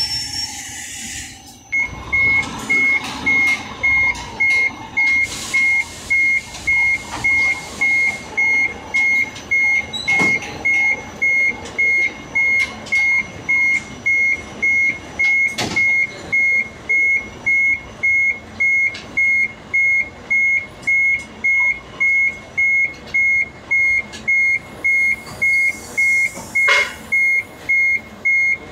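Truck's reversing alarm beeping, a single steady tone at about two beeps a second, over the truck's running engine. A couple of sharp knocks and a short hiss come in near the end.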